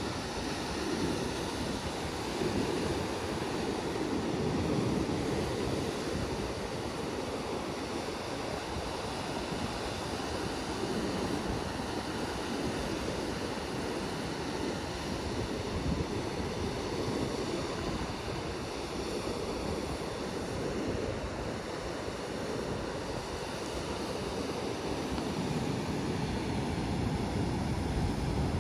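Ocean surf breaking and washing on a sandy beach, a steady rushing noise that swells and eases slowly, with wind rumbling on the microphone.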